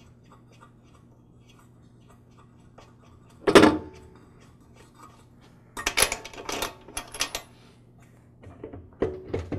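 Faint ticking as the flywheel nut is spun off the threaded crankshaft spindle by hand, then several sharp metal clinks and scrapes as the nut and the loosened flywheel are handled, the loudest about three and a half seconds in and a quick cluster a few seconds later.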